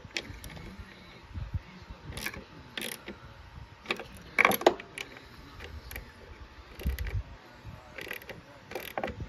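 Hand socket ratchet clicking in short, irregular spells as a bolt is turned, with the loudest run of clicks about halfway through.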